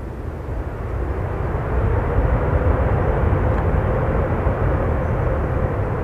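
Airbus A350's twin jet engines running at high power on the runway, the noise rising over the first two seconds and then holding loud, with a steady droning tone through it.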